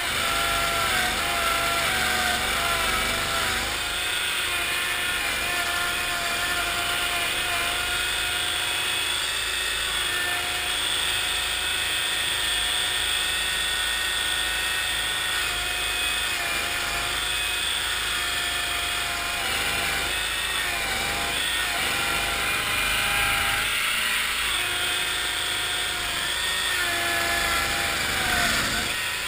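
1974 Cushman Trackster's engine running steadily as the tracked vehicle drives through marsh, its pitch wavering up and down several times.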